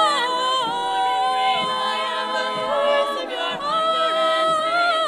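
All-female a cappella group singing in close harmony without instruments, holding sustained chords that move to new chords a few times.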